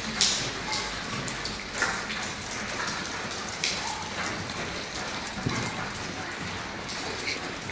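Water dripping and splashing onto a flooded floor: a steady dense patter like rain, with a few louder splashes.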